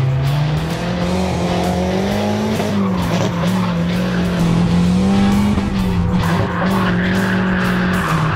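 Turbocharged KA24DE four-cylinder of a Nissan 240SX drift car revving up and down repeatedly as the car slides. Tyre squeal builds over the last couple of seconds.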